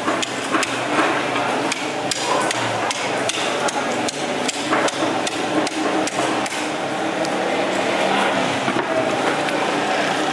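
Heavy knife blade knocking against a wooden chopping block and fish bone while a large fish is filleted: sharp, irregular knocks, a couple a second, thinning out after about seven seconds, over steady market background noise.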